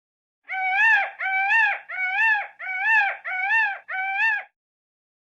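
Peacock calling six times in quick, even succession. Each call is a short, loud, nasal honk that rises slightly and then drops at its end.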